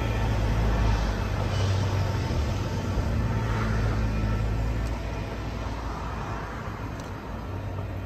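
Freight train of hopper wagons rolling away along the track, a steady low rumble of wheels on rail that fades from about five seconds in.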